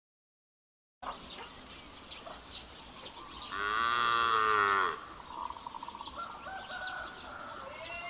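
Cattle mooing: one loud, long moo about three and a half seconds in lasting about a second and a half, then fainter, higher calls near the end. Small bird chirps sound in the background.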